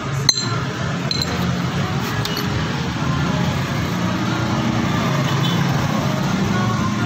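A few sharp metallic clinks of tools and engine parts while a scooter engine is taken apart, the sharpest about a third of a second in, others around one and two seconds in, over a steady low drone.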